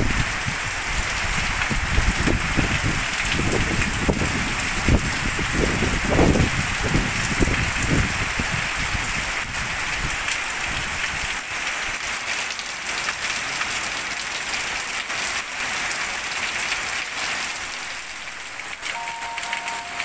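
Heavy rain pouring steadily onto garden foliage. Strong wind gusts buffet the microphone in the first several seconds, then ease off, leaving a steady rain hiss.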